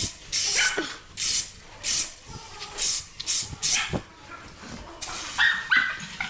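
A rake scraping across the ground in quick strokes roughly every half second. A dog whimpers and yips briefly a couple of times, most clearly near the end.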